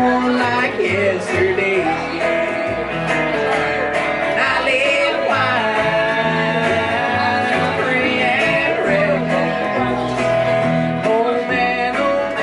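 Live country band playing: electric guitars, one a Telecaster-style guitar, over an upright bass walking in a steady beat, with a man singing.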